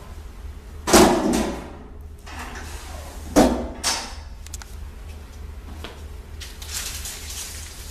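Two heavy clunks about two and a half seconds apart, from handling at a plastic pipe butt welding machine, over a steady low hum.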